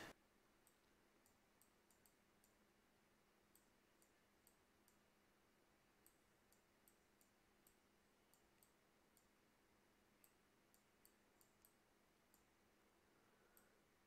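Near silence, with faint, irregular light clicks from a stylus tip tapping a tablet screen while writing digital ink.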